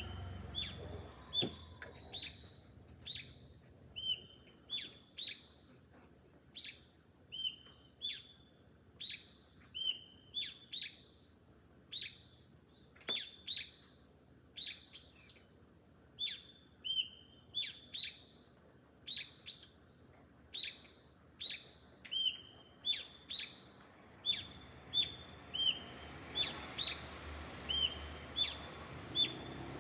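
A garden bird calling over and over: short, high chirps, about one or two a second, each with a quick bend in pitch.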